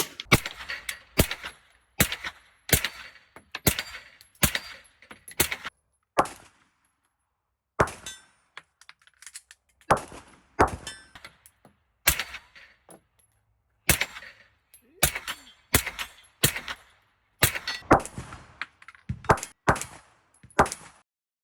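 Pistol shots fired in a steady string, about two a second, with two brief pauses.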